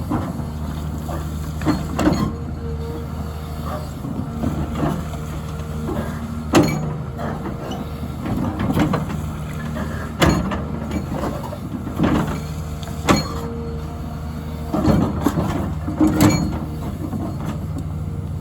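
Hyundai HX300 excavator digging: its diesel engine runs steadily with an on-and-off whine, broken by sharp knocks and clanks every second or few as the bucket works the ground.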